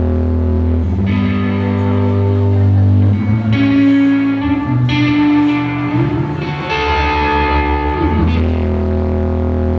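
Live rock band's electric guitar through effects, playing long held notes with pitch slides in the middle, as a loud song intro. The recording is heavily distorted.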